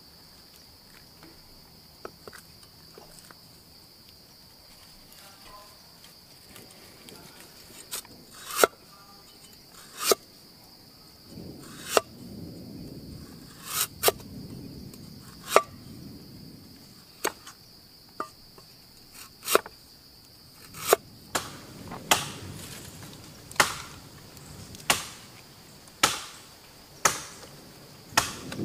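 A large knife chopping ginger root on a wooden board in single sharp chops, about one every one to two seconds, coming faster in the last third. A steady high insect drone runs behind the chops until about two-thirds of the way through.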